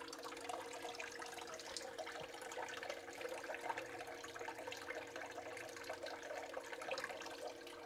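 Water flowing, trickling and splashing in a Blue Bowl gold concentrator, fed by a small submersible pump that hums steadily underneath.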